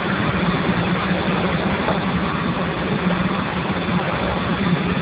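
Steam boiler running: a steady rushing noise with a low hum underneath, unchanging throughout.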